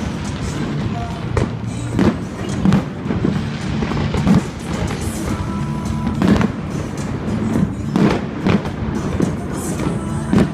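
Fireworks going off, about ten sharp bangs at irregular intervals of roughly half a second to two seconds, over steady music.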